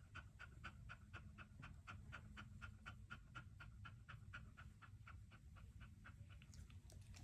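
Beagle panting rapidly and steadily, about five quick breaths a second, faint.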